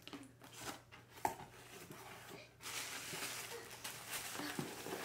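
Tissue paper and wrapped packages rustling as they are pulled out of a cardboard box: a few light taps and knocks in the first half, then continuous crinkly rustling from about halfway.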